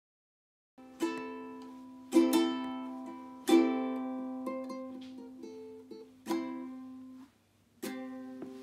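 Ukulele strummed slowly: five chords, each left to ring and fade, with a few lighter notes between them. It starts about a second in.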